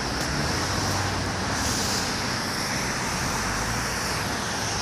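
Steady road traffic noise, cars going by on a nearby road, with one passing a little louder about two seconds in.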